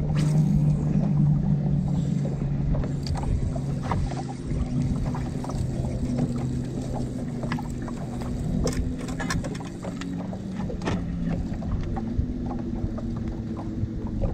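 Boat motor running steadily with a low hum that drifts slightly in pitch, and scattered short knocks and clicks.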